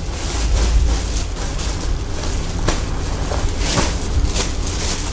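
Fabric rubbing and rustling against the phone's microphone as the cloth is held up to the lens: an irregular crackly rustle over a low rumble of handling noise.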